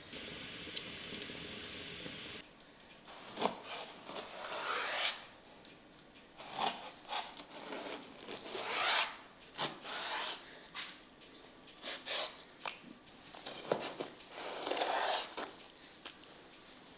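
A knife slicing through raw liver on a wooden board: a run of short, uneven wet slicing and scraping strokes with a few sharp knocks of the blade on the board. A steady hiss fills the first two seconds before the cutting starts.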